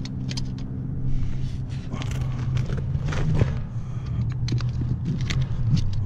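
Scattered small clicks, knocks and clinks of hands handling metal parts and tools, over a steady low machine hum.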